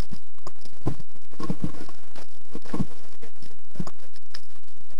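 Footsteps crunching on gravel, roughly one step a second.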